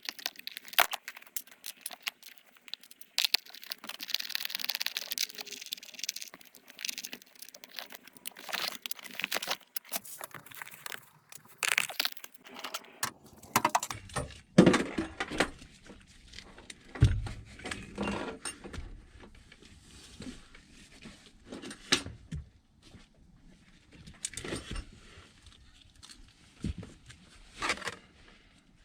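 Metal parts and hand tools clinking, rattling and knocking irregularly as the parking brake pedal assembly is handled and refitted.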